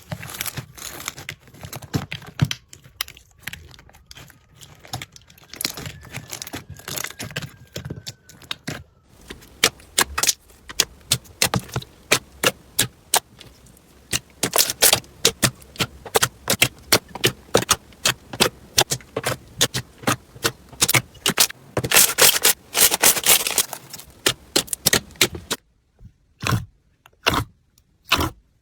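Slime being pressed, poked and squeezed by hand, giving dense runs of sharp crackling clicks and pops. The clicks are softer for the first nine seconds or so, then louder and more distinct.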